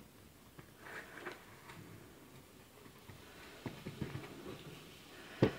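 Faint soft rustling and light ticks of fingers pressing and smoothing kinetic sand, with one sharp knock near the end.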